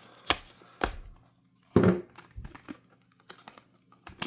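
Hard plastic clamshell packaging being torn open along its perforated pull tab: a few sharp plastic snaps and crackles, the loudest about two seconds in.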